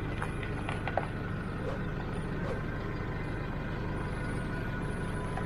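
A vehicle's engine running steadily, a low even rumble, with a few light clicks in the first second.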